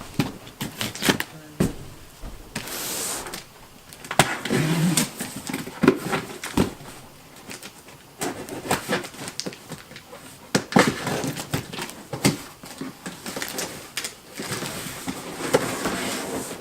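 A large cardboard box being opened and unpacked: cardboard and packing material rustling, scraping and tearing, with many sharp knocks and clicks from handling.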